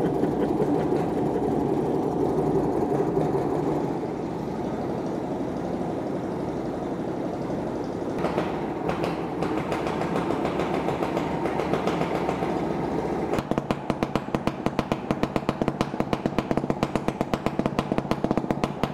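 Stuart Turner P5M single-cylinder two-stroke inboard boat engine running steadily just after starting. About thirteen seconds in, the sound changes abruptly to a rapid, regular pulsing.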